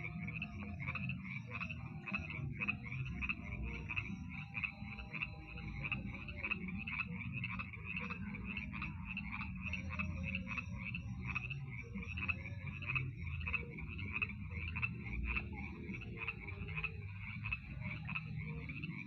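A chorus of frogs calling at a lake at night: many short croaking calls overlapping in a dense, steady stream, over a low steady rumble.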